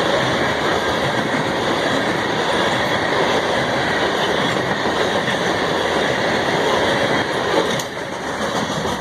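CSX freight train's cars rolling past on the rails, a steady clatter of wheels on track that drops off suddenly near the end.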